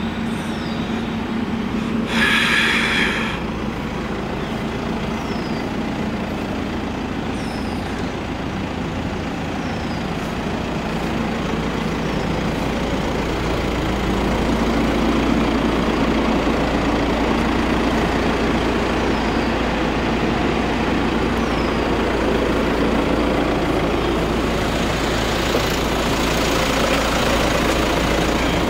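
Toyota HiAce diesel van engine idling steadily, getting louder about halfway through. A short burst of noise about two seconds in.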